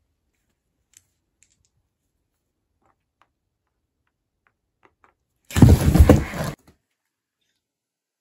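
A few faint clicks of Monopoly pieces and money handled on a game board on carpet. Then, over a second past the middle, comes a sudden loud burst of noise lasting about a second, heavy in the low range, which cuts off abruptly.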